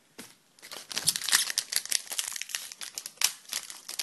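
Foil wrapper of a hockey card pack crinkling while the cards are handled: a dense run of crackles starting about half a second in.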